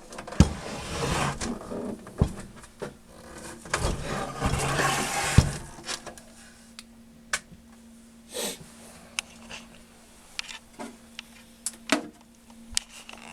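Handling noise: two stretches of rustling and scuffing, with sharp clicks and knocks scattered through, over a faint steady low hum.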